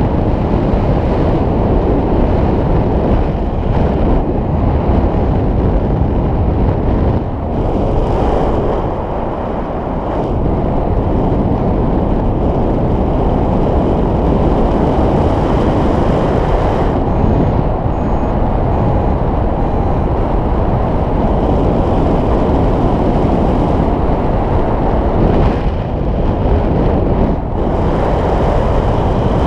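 Airflow of paragliding flight buffeting the microphone: a loud, steady rushing wind noise, deepest in the low end, that eases briefly a few times.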